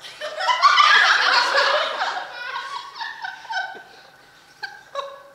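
Theatre audience laughing together. The laughter swells within the first second and dies away over the next few seconds.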